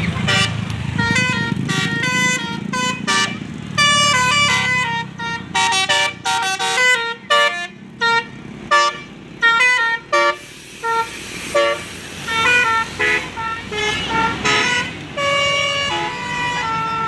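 Bus 'telolet' basuri melody horns playing a tune: a quick run of short pitched toots, each note at a different pitch, over a bus engine's low rumble that fades after about four seconds.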